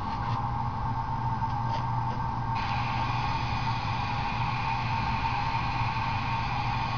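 Model passenger train running on a layout: a steady mechanical hum with a higher whine, and a brighter hiss that joins in a little over two seconds in.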